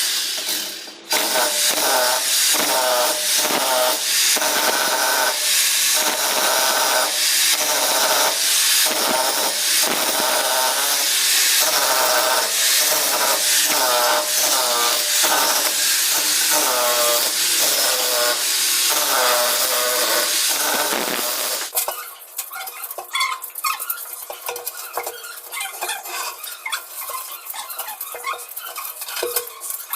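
A handheld power tool running hard under load for about twenty seconds, with a squealing whine whose pitch wavers as it bites, then cuts off suddenly. Light metallic clinking and tapping follow.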